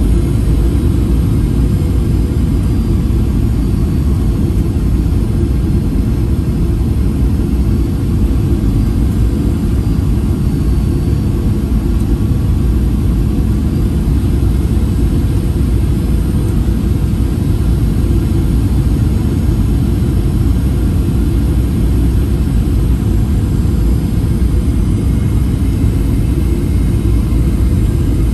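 Steady cabin noise heard from a window seat of a Boeing 737-800 on approach: a constant low rumble of its CFM56 engines and the airflow over the fuselage.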